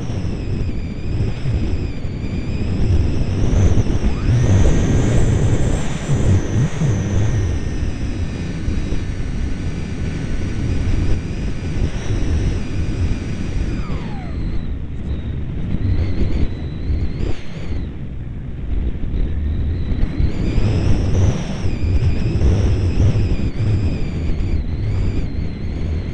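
Radio-controlled model plane in flight, heard from its onboard camera: heavy wind buffeting on the microphone, with the thin high whine of its motor. About halfway through, the whine drops in pitch and fades, then comes back a few seconds later.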